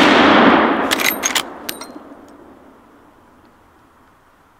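The report of a Henry .45-70 lever-action rifle shot echoing off the range and dying away over about two seconds. Several sharp metallic clacks come about a second in as the lever is worked to chamber the next big round.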